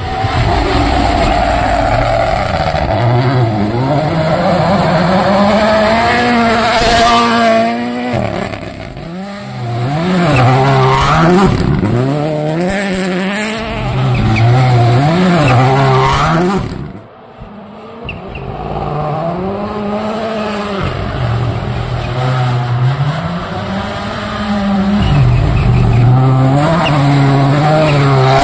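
Toyota GR Yaris Rally1 rally car's 1.6-litre turbocharged four-cylinder engine revving hard at full attack on a gravel stage. The engine note climbs and falls again and again through gear changes and lifts. It cuts out briefly past the middle, then returns as the car comes close.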